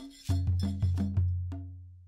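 Closing music: a run of sharp, wood-block-like percussion hits over a deep held bass note, with the last hit about one and a half seconds in, then fading out.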